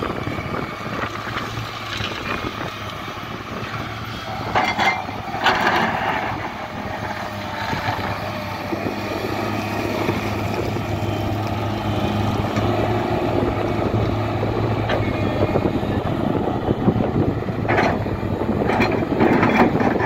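Volvo crawler excavator's diesel engine running steadily under load as it digs and dumps soil, with short bursts of scraping and clatter from the bucket working the gravelly dirt about five seconds in and again near the end.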